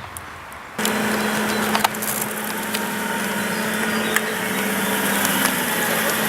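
Aston Martin V8 Vantage's V8 engine idling steadily, coming in suddenly about a second in.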